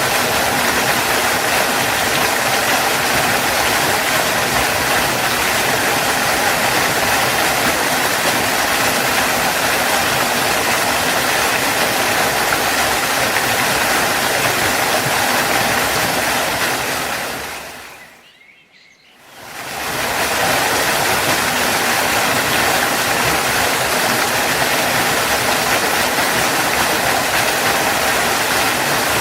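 Waterfall rushing steadily, a loud even roar of falling water; about seventeen seconds in it fades out almost to silence and fades back in over a couple of seconds, a crossfade between recordings.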